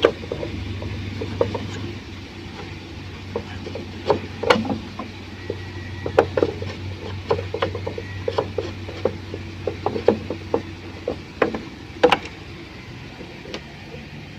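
Irregular clicks and ticks of a screwdriver turning out screws from the casing of a TCL window-type air conditioner, in clusters over a steady low hum, with one loud click about twelve seconds in.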